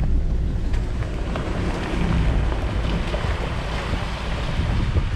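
Steady wind buffeting the microphone over a low engine rumble while under way.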